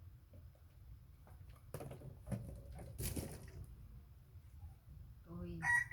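A few soft clicks and rustles over a low steady rumble, loudest around two and three seconds in. Near the end a loud pitched call starts, rising in pitch.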